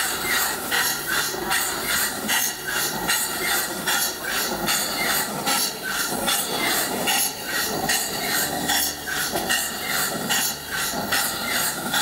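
Home-built steam engine running under steam from its boiler: a steady, even rhythm of chuffing exhaust strokes with hissing steam, like a small steam locomotive.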